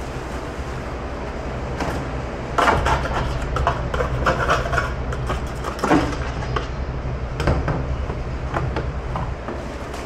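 Hand-scrubbing a crusted metal sheet pan with a scouring pad in a soapy sink: irregular scraping strokes and a few knocks of metal, busiest from about two and a half seconds in, over a steady low hum.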